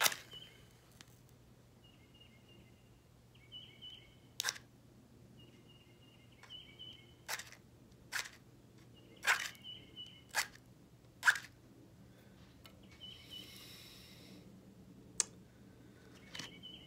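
A wooden match, coated in nail polish and soaked in water, struck again and again against a matchbox's striker strip: a series of sharp, separate scratching clicks spread out over several seconds, then a brief hiss.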